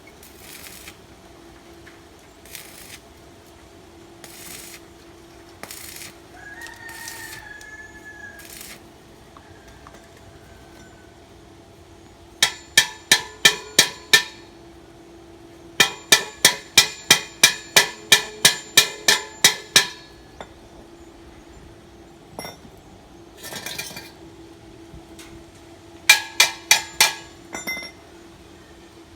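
Hammer striking steel in three quick runs of ringing metallic blows, about four a second, over a steady low hum.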